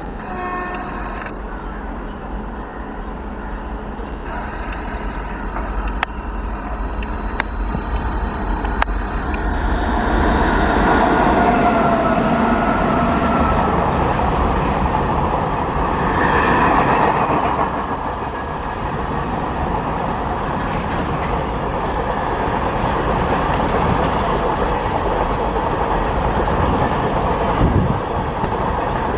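Freight train rolling past: a WAG-9 electric locomotive approaching, then covered freight wagons going by with a steady rumble and clatter of wheels on rail. A few sharp clicks come in the first part, and a brief squealing tone follows about eleven seconds in.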